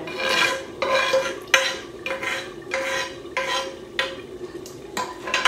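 Metal spoon scraping around a non-stick frying pan in repeated short strokes, a little under two a second, emptying the last onion and pepper sauce into a bowl.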